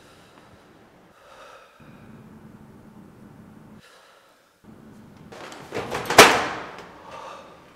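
A metal locker door swung shut and slammed: one sharp bang with a short ringing tail about six seconds in, the loudest sound, after faint clatter and rustling.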